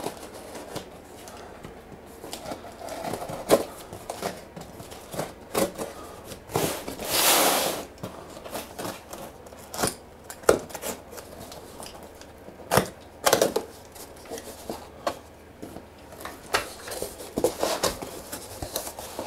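Stanley knife blade slitting packing tape on a cardboard box: a run of short scraping cuts and clicks, with a longer rip about seven seconds in. Cardboard knocks and rustles as the box is turned and its flaps are opened near the end.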